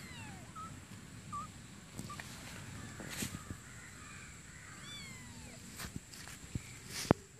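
Kittens mewing: a high, falling mew at the start and another about five seconds in. A few sharp knocks are heard, the loudest just before the end, over low rustling.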